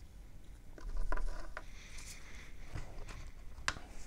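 Small handling clicks and taps: a broken piece of a ceramic wirewound resistor set down on a cutting mat and a handheld multimeter moved into place. There is a cluster of taps about a second in and a sharper click near the end.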